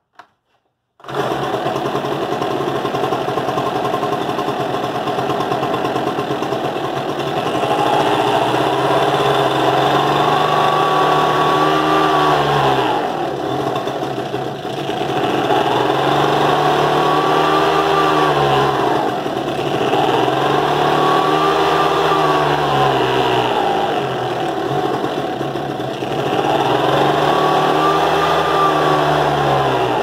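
Ryobi BP42 backpack blower's two-stroke engine and fan running on choke, with both carburetor mixture screws set 1.5 turns out. The sound begins suddenly about a second in. From about eight seconds on, the engine speed rises and falls in slow swells every three to four seconds.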